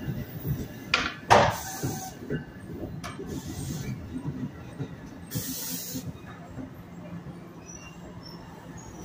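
NJ Transit bi-level commuter coaches roll slowly past the platform as the train draws to a stop. The wheels rumble, a sharp clank comes about a second in, and three bursts of air hiss from the brakes follow, the loudest at about five and a half seconds.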